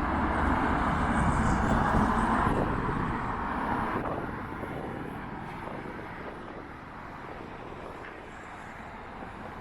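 A road vehicle passing, its tyre and engine noise swelling to loudest about two seconds in and then fading into a steady background of traffic and wind.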